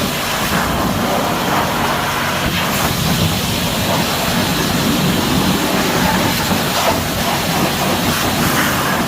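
Pressure washer running steadily: a continuous hiss of the water jet with a low hum from the pump underneath.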